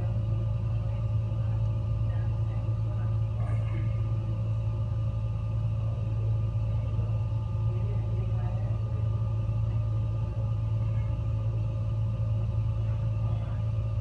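Gas fireplace burning steadily: a constant low rumble from the burner flames, with a faint steady hum over it.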